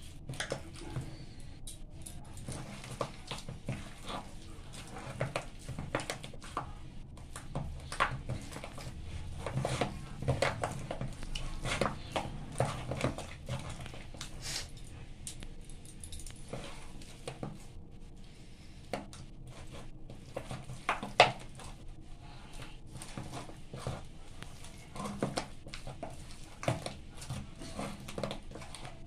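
Hand kneading a soft semolina-and-khoya dough in a steel bowl: irregular soft squelches with clicks and knocks as fingers and bangles hit the metal bowl, one knock about two-thirds through sharper than the rest.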